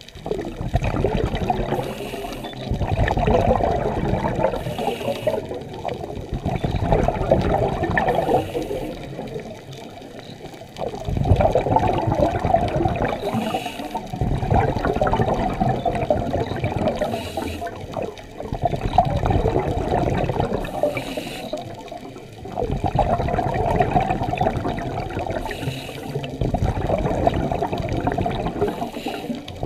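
Scuba divers' exhaled air bubbling out of the regulator underwater, a gurgling rush that swells and fades every few seconds with each breath, muffled through the camera's waterproof housing.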